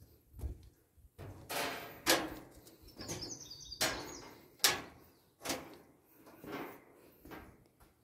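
A person climbing steel tower stairs: footsteps clanking on the metal treads about once a second, with breathing between them. A brief bird chirp comes about three seconds in.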